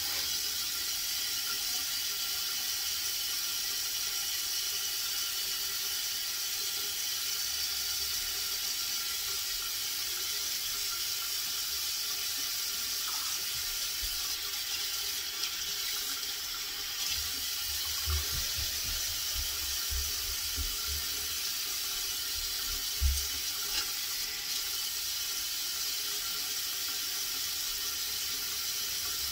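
Water running steadily from a bathroom tap, an even unbroken hiss. A few dull low bumps sound about two-thirds of the way through.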